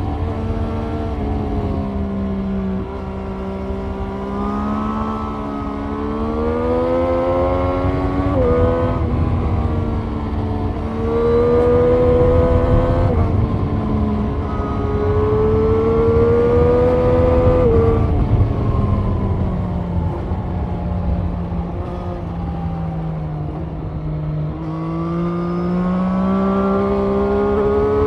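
Triumph Street Triple 765 RS motorcycle's inline three-cylinder engine running hard at road speed, its pitch climbing and easing with the throttle and stepping abruptly several times at gear changes. Wind rumbles on the microphone underneath.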